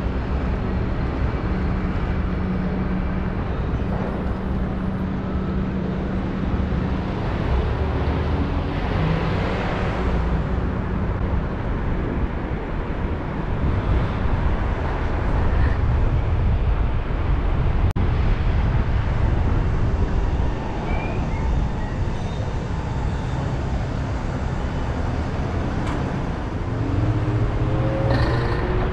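Car driving through city traffic: a steady engine hum at first, then continuous road and tyre noise with other vehicles around, and an engine speeding up near the end.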